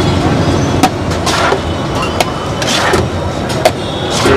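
Steel plates scraping and clinking against a large flat tawa griddle as a big batch of tawa pulao rice is scooped, tossed and mixed, with a few sharp metal scrapes over a steady low rumble.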